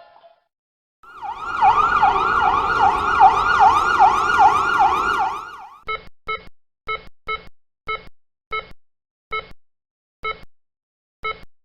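An emergency-vehicle siren sounds a fast, repeating up-and-down wail for about five seconds. It then gives way to a run of about ten short electronic beeps, like a heart monitor's pulse, coming further and further apart.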